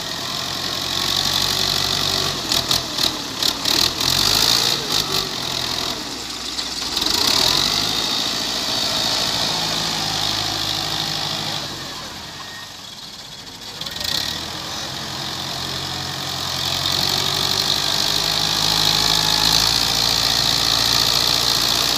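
Fiat 640 tractor's diesel engine working under load as its front blade pushes sand, with a run of sharp knocks a few seconds in. The engine sound drops away a little past halfway and builds up again toward the end.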